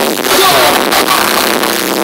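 Loud live music from a festival stage's PA system, recorded on a phone and heavily distorted into a harsh, crackly wash with little bass.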